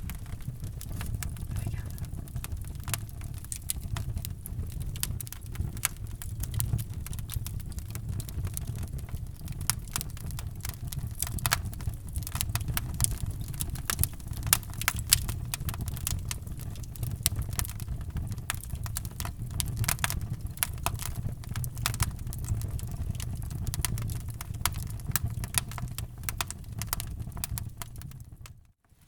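Wood fire crackling in a fireplace: a steady low rumble of flames under many irregular sharp pops and snaps. The sound cuts out for a moment near the end.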